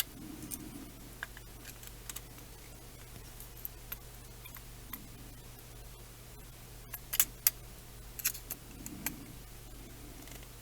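Scattered light clicks and taps of a hex driver and small screws being worked on a carbon fiber quadcopter frame, with two sharper clicks about seven seconds in, over a low steady hum.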